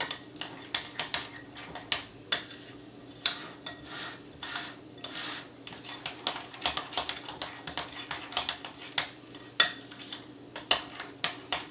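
A utensil clinking and scraping against a bowl while matzo ball batter is stirred, in quick irregular knocks, a few a second.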